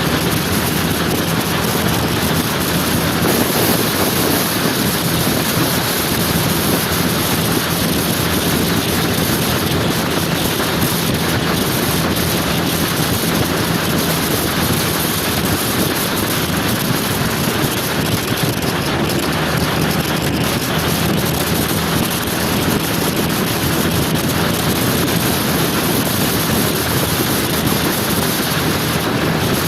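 Motor scooter on the move: steady wind rushing over the microphone, with a constant low engine hum underneath.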